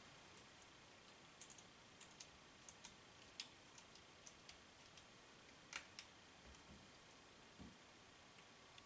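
Faint, irregular small clicks and ticks of a PH00 precision screwdriver turning a tiny Phillips screw out of a plastic security-camera housing, with a couple of soft knocks of handling near the end.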